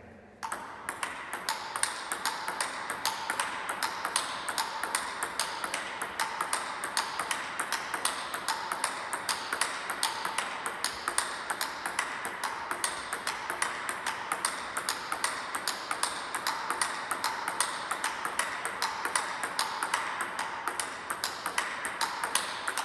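Table tennis ball in a quick, steady forehand drill: a regular run of sharp clicks as the ball strikes the bat and bounces on the table, over a steady hiss.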